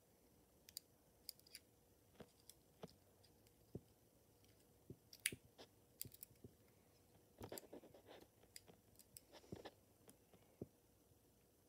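Faint, scattered small clicks and taps from an N scale model diesel locomotive and its plastic wheel truck being handled, with a denser run of clicks about seven to ten seconds in.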